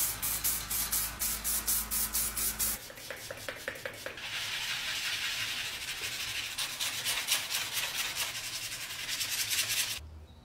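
Rubbing and sanding strokes on the cast-iron body of a hand meat grinder being restored: quick, evenly repeated strokes of several a second, turning into a steadier scrubbing hiss about four seconds in, then dropping away sharply near the end.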